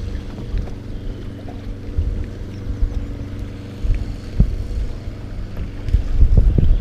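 Steady hum of a fishing boat's motor with low wind rumble on the microphone, the wind growing louder near the end, and a few light knocks.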